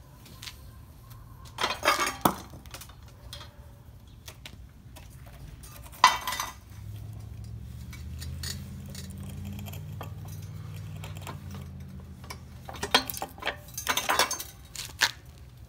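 Pavetech manual lever paver splitter used as a geode cracker, breaking a solid geode: grinding crunches about two seconds in, then one sharp crack about six seconds in as the rock gives. Near the end the split halves and grit clink and scrape against the steel bed of the splitter. A low steady hum runs through the middle.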